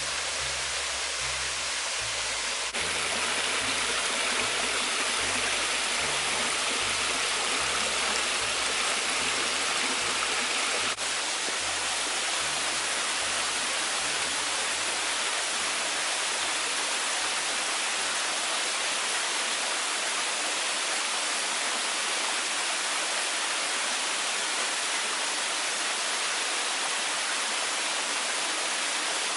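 Small waterfalls and a creek splashing over sandstone ledges: a steady rush of falling water. It steps louder about three seconds in and a little quieter about eleven seconds in.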